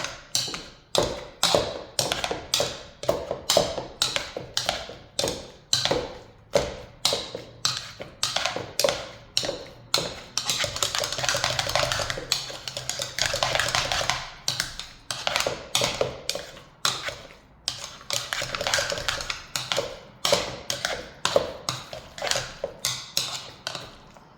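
Hand potato masher working cooked potatoes in a pot, with a steady run of sharp knocks, about two a second, as it hits the pot bottom and sides on each stroke.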